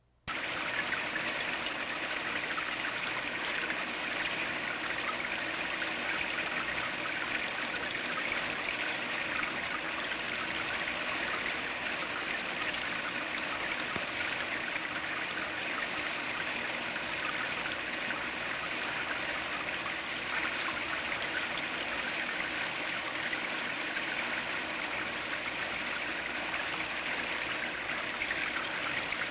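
Steady rain falling, an even, unbroken wash of drops with no let-up.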